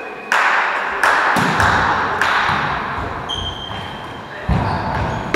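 Volleyball play in an echoing sports hall: several sharp hits and thuds of the ball, with a brief high steady squeak a little past the middle and voices underneath.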